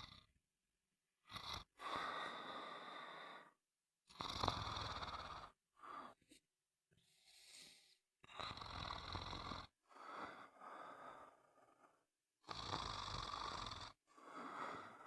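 Snoring: a series of snores, each lasting a second or two and coming every two to four seconds, with dead silence between them.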